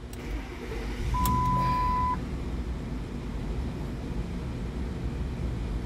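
A 2004 Lincoln Aviator's 4.6-litre V8 starts: it cranks, catches about a second in with a short rise in revs, then settles to a steady idle. A steady electronic beep sounds for about a second as the engine catches.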